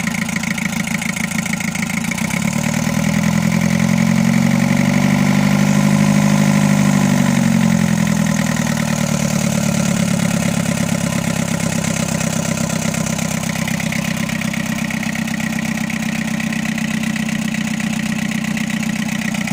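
Mitsubishi Canter's freshly rebuilt 4DR7 engine running on its first start, rising in speed about two seconds in and settling back to idle by about nine seconds. It is slightly misfiring on one cylinder.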